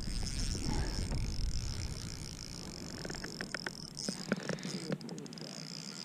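Steady high-pitched insect drone throughout, with a low rumble in the first two seconds and a scatter of sharp clicks in the second half from the fishing reel and rod as a hooked fish is played on light line.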